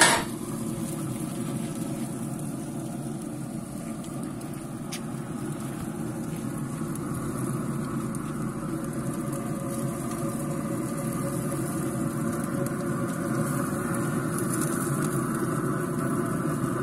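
Steaks sizzling on a grill: a steady low rushing noise with a faint high hiss over it. A sharp click comes right at the start and a smaller one about five seconds in.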